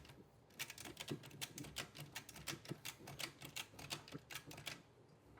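Ratchet strap being cranked tight, its pawl clicking in a quick, even run that stops near the end. Each stroke takes up strap on the dolly as it lifts the heavy load.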